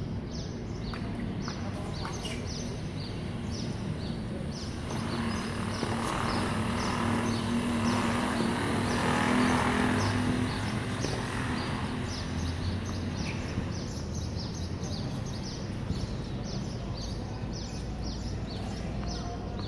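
Outdoor background of short high chirps repeating a couple of times a second. A louder swell of engine-like noise with a low hum builds, peaks about nine seconds in and fades, like a vehicle passing.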